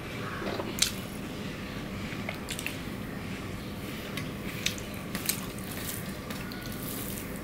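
Rice being mixed by hand with curry on a steel plate, and chewing close to the microphone: soft wet squishes with a few sharp clicks, the loudest about a second in.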